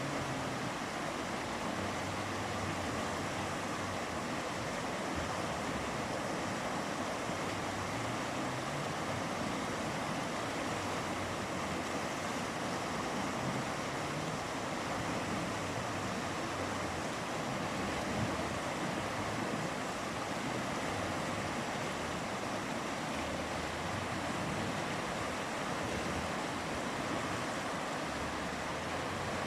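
Mountain river flowing, a steady, even sound of moving water with no breaks or separate events.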